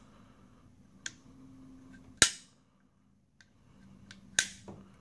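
Aluminium rear backup iron sight of an AR-15 being flipped by hand, snapping sharply into place on its spring detent. There is a light click about a second in, loud snaps about two seconds apart, and a smaller click just after the second snap.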